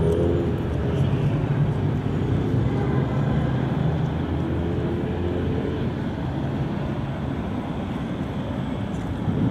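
City traffic: vehicle engines running and idling in a steady low rumble, with a second, higher engine tone that fades out a little past halfway.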